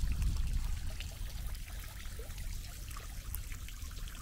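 Faint, steady trickling of running water under a low rumble.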